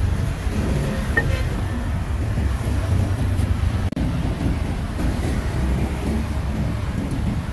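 Steady low rumble of street traffic, with motorbike engines running close by. The sound briefly cuts out about four seconds in.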